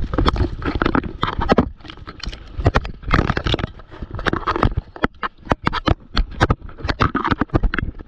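Water splashing and churning around an action camera, with a rapid, irregular run of sharp knocks and scrapes against the camera that grows denser about halfway through.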